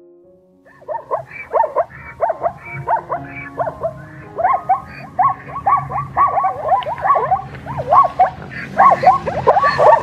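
Zebra calling: a long run of quick yelping barks that rise and fall in pitch, two to three a second, starting about a second in.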